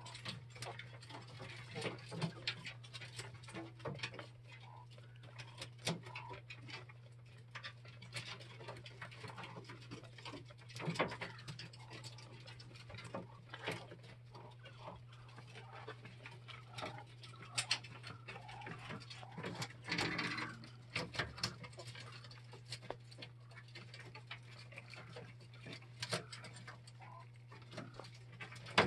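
Coturnix quail moving about a wire-floored cage, making scattered light taps and scratches. A steady low hum runs underneath.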